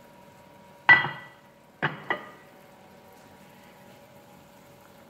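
Three ringing clinks of a spatula against a metal saucepan, the loudest about a second in and a close pair just under a second later. Beneath them, sugar syrup bubbles faintly at the boil.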